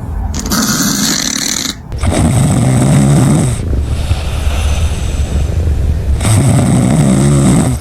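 A domestic cat snoring loudly, with deep, rattling, human-like snores. The loudest snores swell in about two seconds in and again about six seconds in.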